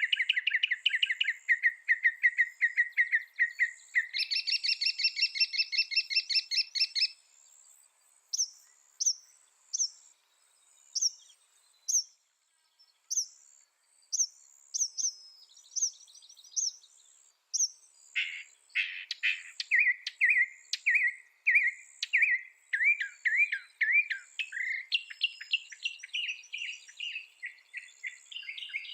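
Mockingbird singing, repeating each phrase many times before switching to another: a fast run of rapid notes, then a higher buzzy phrase about four seconds in, then sharp separate notes roughly once a second, and about eighteen seconds in another fast series of repeated notes.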